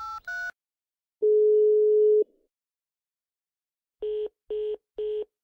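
Telephone call tones from a mobile phone. The last two keypad dialing tones are followed by one long ringing tone of about a second and a pause. Then come rapid short beeps of the same pitch, about two a second.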